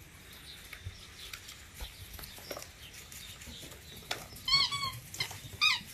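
Pit bull puppy giving two short, high whines, the first arching up and down, the second rising, over faint scratching and rustling of paws.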